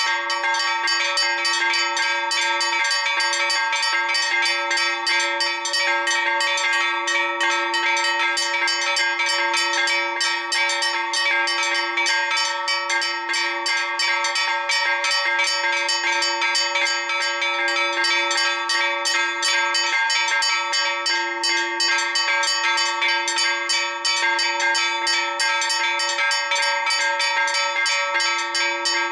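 Four church bells of the Church of Our Lady of Hope in Mosta, Malta, rung together in a Maltese festa peal (mota). The strikes come rapid and unbroken, overlapping into a steady ringing.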